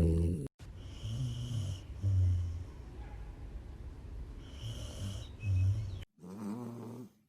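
A sleeping dog snoring: a series of low snores, a few louder ones between quieter breaths, broken twice by abrupt cuts.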